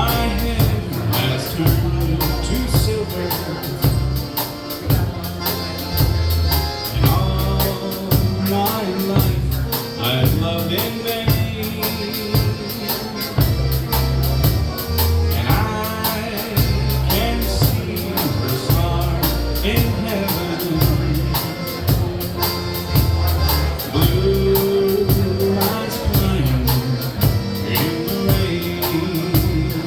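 Live band playing a country ballad: a stepping bass line under guitar and other pitched parts, with an even, light high ticking keeping the beat.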